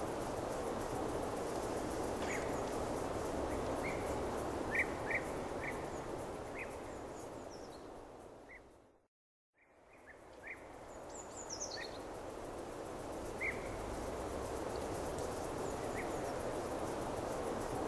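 Steady outdoor background noise with scattered short bird chirps. The sound fades out to silence about halfway through, then fades back in.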